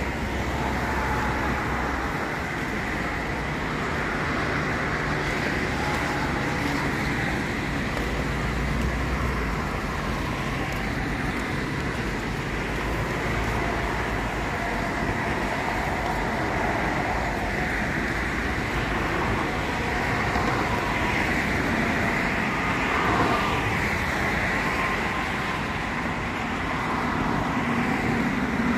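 Steady road traffic noise: cars passing continuously.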